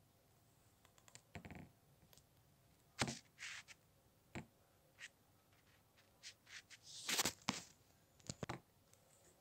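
Scattered light taps, knocks and short rustles of hands handling things close to the microphone: small plastic toy figures and the recording phone being moved about on a tabletop. The loudest knocks come about three seconds in and around seven seconds in.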